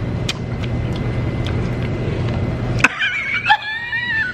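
A steady low background hum of restaurant room noise, which cuts off abruptly about three seconds in. It gives way to high-pitched, wavering laughter.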